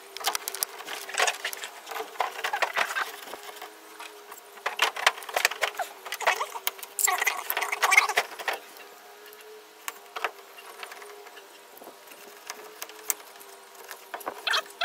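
Bursts of clicking and scraping as a hand tool works along the camper shell's window frame while a replacement screen is fitted, over a faint steady hum.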